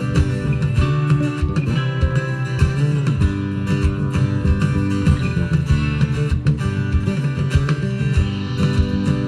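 Live rock band playing an instrumental break: guitars strumming and picking over bass and drums with a steady beat, no singing.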